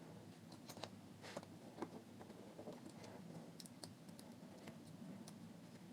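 Faint, irregular clicks and ticks of a small screwdriver and screws being worked into a cassette deck's motor mounting, over a faint low hum.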